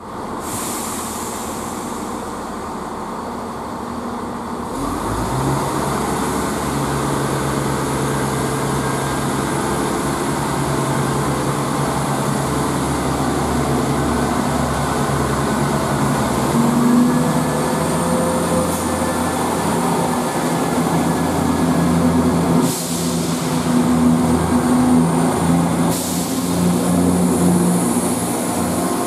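ScotRail Class 170 Turbostar diesel multiple unit pulling away along the platform. Its diesel engines hum at first, then open up about five seconds in and run under power as the train gathers speed past, the engine note stepping up a couple of times. Two short thumps come near the end.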